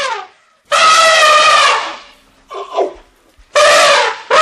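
Elephant trumpeting in several loud calls: the end of one call at the start, a long call of about a second, a short call, then another long call starting near the end.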